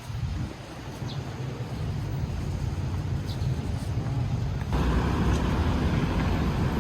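Street traffic noise: a steady low rumble of passing vehicles that suddenly grows louder a little before the end.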